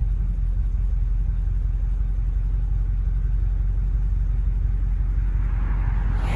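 A steady low rumble, then near the end the rising sound of a BMW M850i's twin-turbo V8 approaching for a drive-by.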